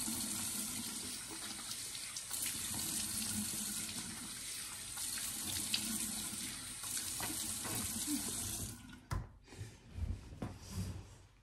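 Bathroom sink faucet running steadily while someone washes their face. The water stops near the end, followed by a few short splashes.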